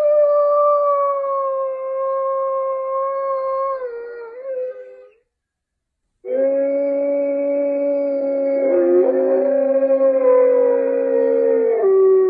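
Gray wolf howling: one long, steady howl that drops in pitch as it ends about five seconds in, then after a short pause several howls overlapping at different pitches.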